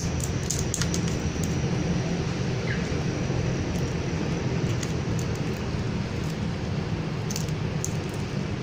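Steady low background rumble, with scattered small clicks and ticks from handling tools and wires.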